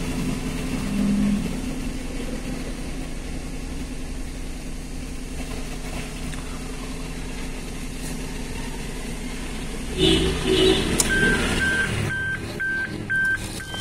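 Car engine idling, heard inside the cabin as a steady low hum. About ten seconds in there is a brief louder sound, then the car's warning chime starts beeping, a little over twice a second.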